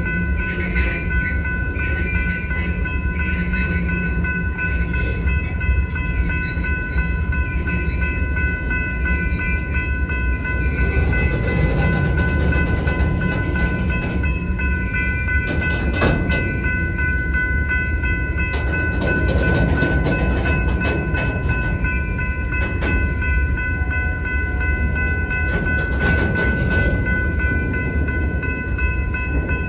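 Freight train of covered hopper cars rolling through a grade crossing: a steady low rumble of wheels on rail with a few sharp clanks, notably around the middle and near the end. Over it the crossing warning bell rings on steadily in high, even tones.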